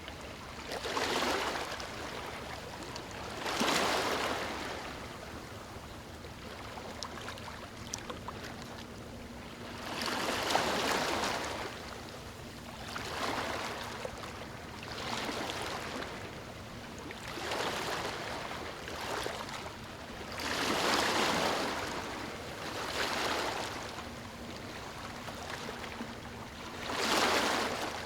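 Small waves lapping on a beach, each one washing in with a rising and falling hiss, about every two to three seconds.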